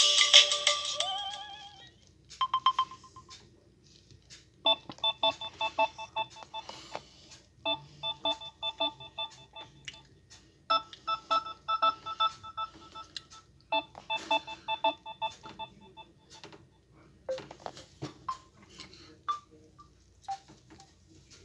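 Samsung Galaxy A12 ringtones playing. A louder tone fades out in the first second, then a short pattern of bright electronic notes repeats about every three seconds, followed by a few scattered blips near the end.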